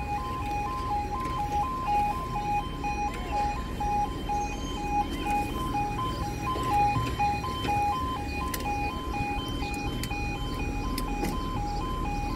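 Level crossing audible warning alarm: an electronic two-tone alarm alternating quickly and steadily between a lower and a higher pitch.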